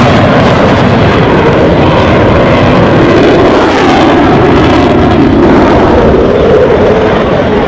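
Dassault Rafale fighter jet's twin Snecma M88 turbofan engines, loud and continuous jet noise during a flying display. The pitch wavers slowly up and down as the aircraft moves.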